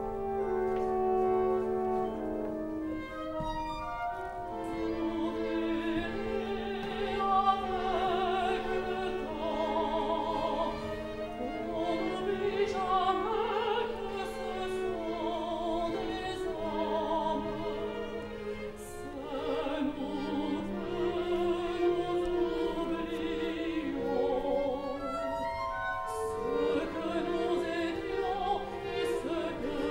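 Operatic singing with vibrato over an orchestra: a woman's voice carries the sung line while strings hold a long low note underneath, which shifts down slightly about halfway through.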